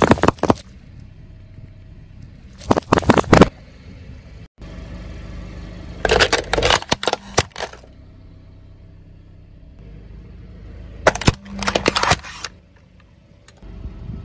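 A car tyre rolling over and crushing objects, with the car's engine running steadily between the crushes. Juice cartons burst under the wheel at the start and again about three seconds in. There is more loud crunching and cracking around six to eight seconds, and a small white toilet model cracks and shatters under the tyre about eleven seconds in.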